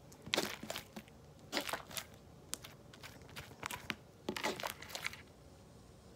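Sticky homemade slime squished, pulled up and pressed by hand on a desk, giving off quick wet crackling and popping. It comes in about five short bursts and stops about five seconds in.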